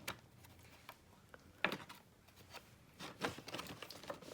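Packaging being opened by hand: scattered faint rustles, crinkles and small ticks, with a sharper crackle about a second and a half in and a cluster of handling noises about three seconds in.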